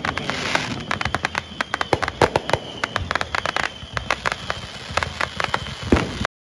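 Fireworks crackling and popping: a rapid, irregular string of sharp cracks that cuts off suddenly about six seconds in.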